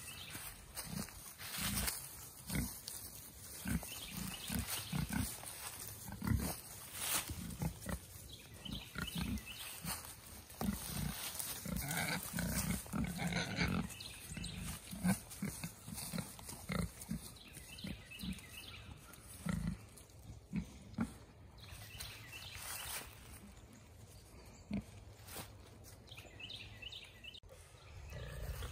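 Pigs grunting over and over in short low grunts while they root and forage, with crackling from dry leaf litter in between.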